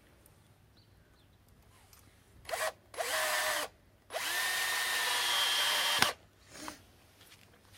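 Cordless drill driving a screw through plastic mesh netting into a wooden stake: a brief blip, a short run of about half a second, then a longer run of about two seconds that rises in pitch as it spins up, holds steady and stops sharply.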